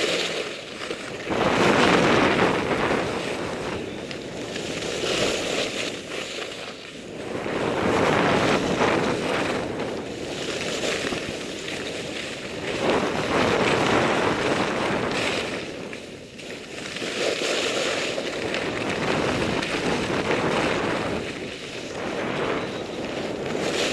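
Skis scraping and carving on packed snow, a rushing hiss that swells and fades with each turn every few seconds, mixed with wind buffeting the helmet camera's microphone.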